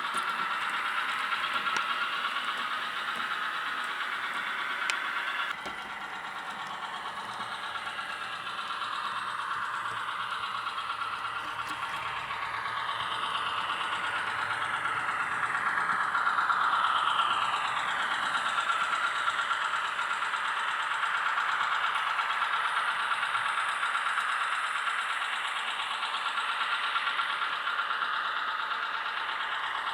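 ZIMO sound decoder in an H0 model of an NS series 200/300 diesel shunting locomotive, playing its diesel engine sound through the model's small loudspeaker as the model runs. The sound is steady, with a whine that glides up and down in pitch midway through, and it drops suddenly in level about five seconds in.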